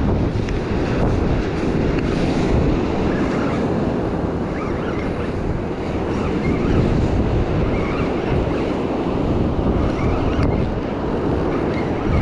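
Wind buffeting the microphone over surf breaking on a sandy beach, a steady, heavy rush of noise.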